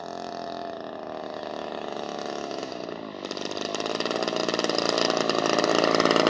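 DLE 35cc single-cylinder two-stroke petrol engine of a large RC Corsair model running at low throttle during the landing rollout. It grows steadily louder and harsher from about three seconds in as the plane rolls close past.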